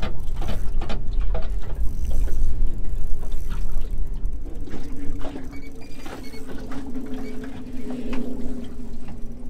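A spinning reel being cranked while a hooked fish is played from a small boat, with scattered clicks and knocks over a low wind and water rumble. A steady low hum sets in about halfway through.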